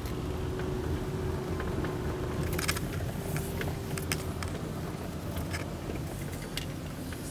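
Car driving slowly, heard from inside the cabin: a steady low rumble of engine and tyres with a faint steady hum. A few light clicks and rattles come in the middle.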